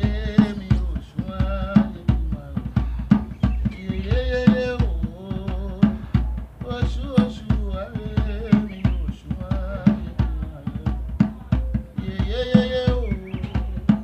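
Music with a steady drum-kit beat, bass drum and snare, and a melody line over it that bends and wavers in pitch.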